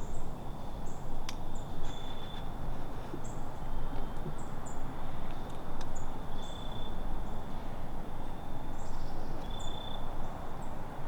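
Quiet woodland ambience: short, high bird chirps repeating every second or so over a steady low rumble of wind or mic handling, with a faint steady high whine and a couple of sharp clicks.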